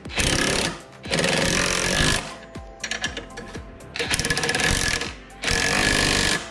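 Cordless impact driver hammering in repeated bursts of about a second each, driving bolts down against nylon lock nuts as a mower striper bracket is tightened.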